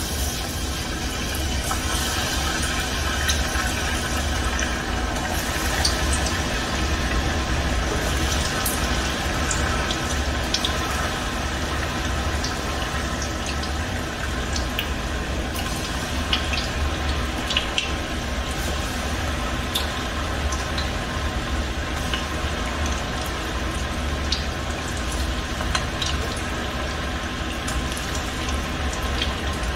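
Battered cauliflower pieces deep-frying in hot oil in a small stainless saucepan: a steady bubbling sizzle with many scattered pops and crackles.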